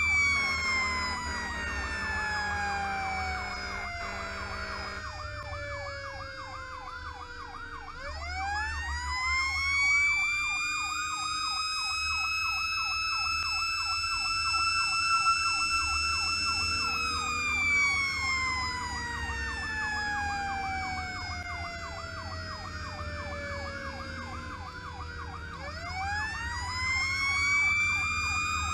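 Fire apparatus sirens: a wailing siren that winds down through the first several seconds, winds up about eight seconds in to a steady high wail, coasts down from about the middle and winds up again near the end. A rapid electronic yelp siren warbles about four times a second throughout, over the low rumble of the truck on the road.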